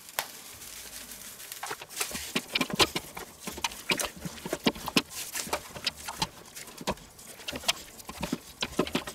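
Gloved hands patting and rubbing a dry spice rub into a raw pork neck in a stainless steel tray: irregular soft slaps and taps, starting after about a second and a half.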